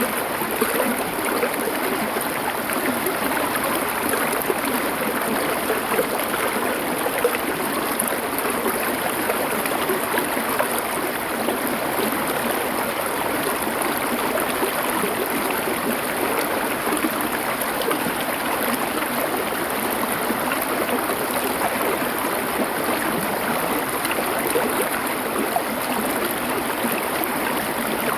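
Stream water flowing and splashing over stones in a steady, unbroken rush.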